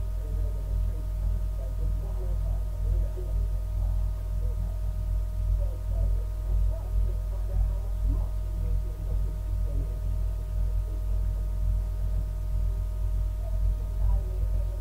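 Steady low hum and rumble with a few faint, steady higher tones over it: constant background noise with no distinct events.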